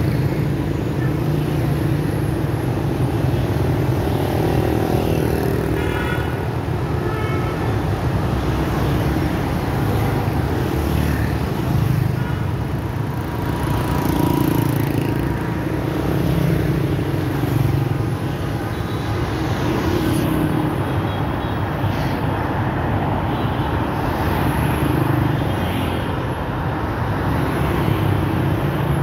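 City road traffic heard from a moving car: a steady mix of motor-scooter engines and car tyres, swelling and easing every few seconds as vehicles pass close by.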